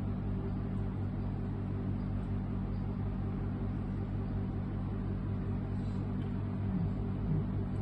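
A steady low hum with several evenly spaced overtones over a faint hiss, unchanging throughout.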